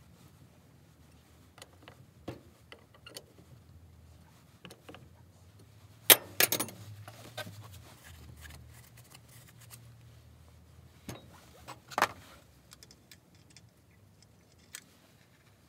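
Metal tools and a steel bar being handled and set down on a rag-covered bench: scattered light clinks and knocks, with a louder clatter about six seconds in and another sharp knock about twelve seconds in.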